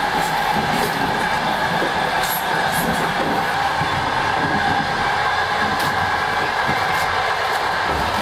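Steady running noise of a moving passenger rail car heard from inside the carriage, with a few faint clicks and rattles.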